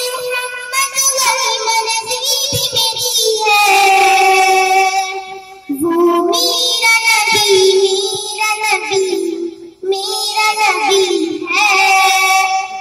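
A girl singing a naat, a devotional song in praise of the Prophet Muhammad, in a high voice with long held, wavering notes, in phrases broken by two short pauses.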